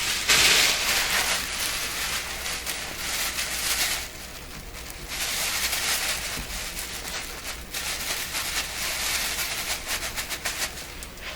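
Cloth rags rustling and crinkling as they are pressed by hand onto a glued paper speaker cone, in three long bouts of noise with short lulls between them.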